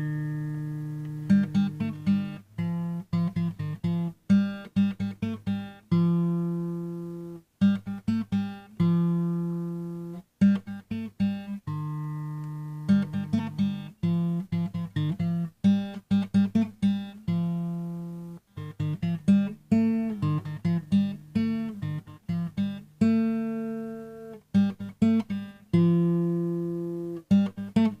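Background music: a plucked acoustic guitar playing single notes and chords that ring and fade.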